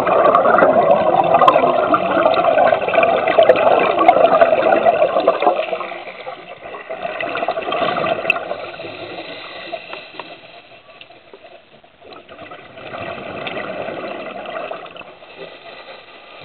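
A scuba diver's exhaled bubbles from the regulator gurgling and rushing past an underwater camera, loud for the first five seconds or so. Fainter swells of bubbling come back twice later, with each breath out.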